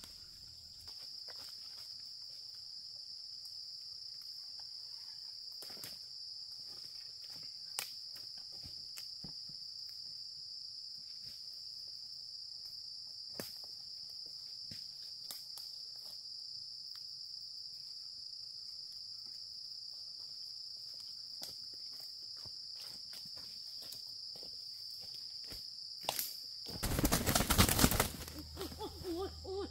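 Steady high-pitched insect drone with scattered faint clicks and snaps. Near the end a loud burst of noise lasts a little over a second.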